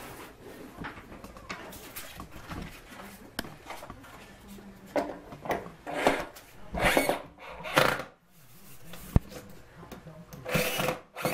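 Cordless right-angle drill running in several short bursts, driving screws through a wooden cleat into a walnut panel, after a few seconds of quieter handling. A single sharp click falls between the bursts.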